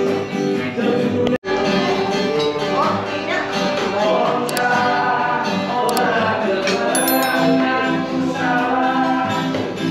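A man singing along to his own acoustic guitar, a live song with strummed chords under a wavering sung melody. The music drops out for an instant about a second and a half in.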